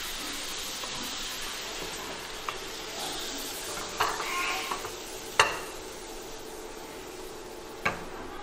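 Sliced bamboo shoots sizzling in a stainless steel wok, the sizzle slowly fading, while a wooden spatula stirs and scrapes them out onto a plate. Several sharp clinks of the wok and spatula against the plate, the loudest a little past five seconds in.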